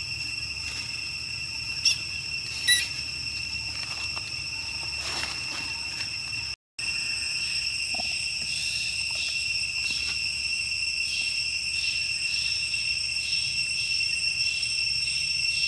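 Steady, shrill insect chorus with a second, higher band, pulsing rapidly in the second half. Two short sharp clicks come a couple of seconds in, and the sound cuts out for a moment about halfway.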